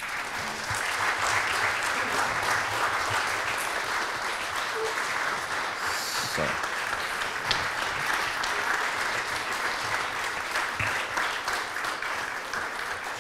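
Audience applauding: a hall full of people clapping, starting suddenly and easing off slightly near the end.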